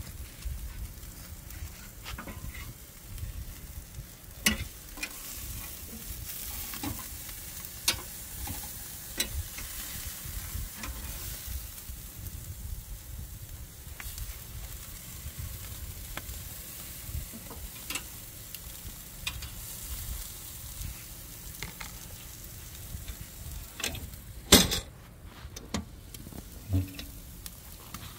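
Steaks sizzling on a barrel grill's grate, a steady hiss broken by a few sharp clicks of metal tongs against the grate and meat, the loudest clack near the end.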